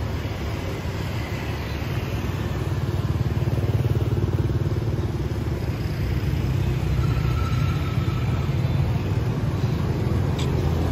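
City street traffic: a steady rumble of motorbikes and cars going past, growing louder a few seconds in.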